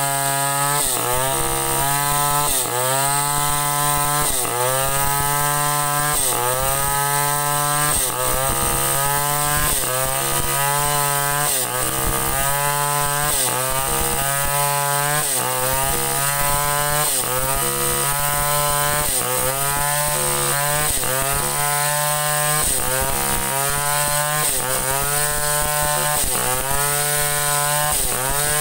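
Chainsaw ripping a sengon log lengthwise, the engine running at high revs under load. Its pitch dips and recovers over and over, about once every second and a bit, as the bar is rocked through the cut.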